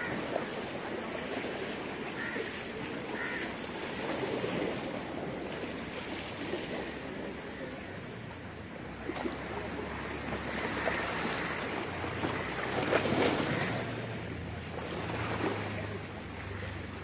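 Waterside ambience: a steady rush of wind and water, with a low engine hum that comes in about halfway and grows stronger.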